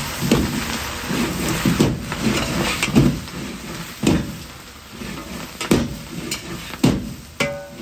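Metal ladle knocking and scraping against a wok while fried chicken and green onions are stir-fried and tossed, over a steady sizzle. The knocks come about once a second, and a ringing metal clang sounds near the end.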